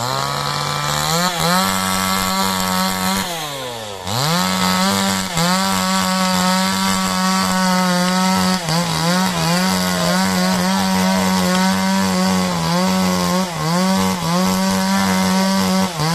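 Chainsaw cutting into a rubber tree trunk: the engine revs up about a second in, drops back to idle near four seconds, then runs at full throttle through the wood, its pitch dipping briefly again and again as the bar bites. The operator calls the saw's power good but its chain blunt.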